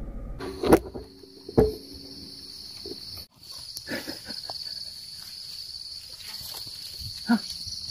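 Steady, high-pitched insect drone, with two sharp knocks about a second in and a brief pitched call near the end.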